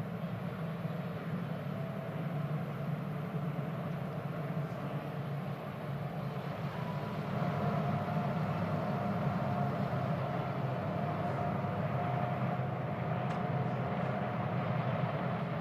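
A field of IndyCars running slowly in parade formation, their engines making a steady drone that gets louder about seven seconds in as the cars come by.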